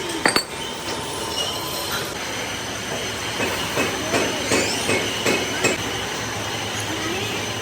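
Workshop noise: a steady hum with two sharp metallic clanks just after the start, then a run of short wavering sounds in the middle.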